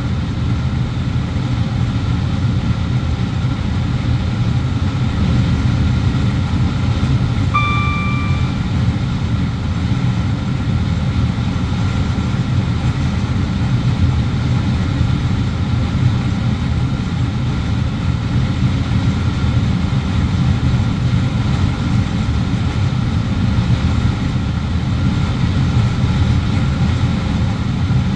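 Class 350 electric multiple unit running, heard from inside the driver's cab: a steady low rumble that does not change. About seven and a half seconds in, a single short electronic beep sounds for about a second.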